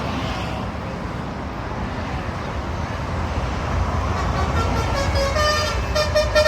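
Highway traffic rumble rising as a bus approaches, then about five seconds in a multi-tone telolet bus horn starts playing a tune of held, stepped notes.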